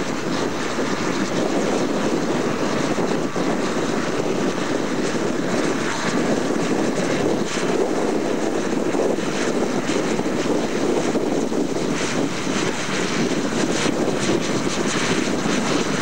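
Tractor diesel engine working steadily under load, pulling front and rear reversible ploughs through the soil, heard from across the field.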